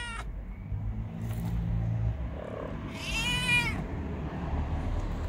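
Kitten meowing, begging for food: the end of one meow at the start, then a second meow about three seconds in that rises and falls in pitch.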